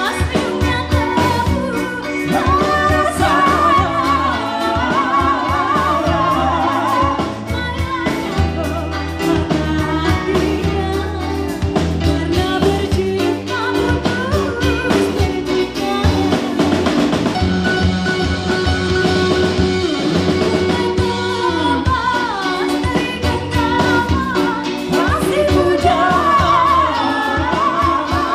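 Pop-style music with a singer's voice over drums and bass.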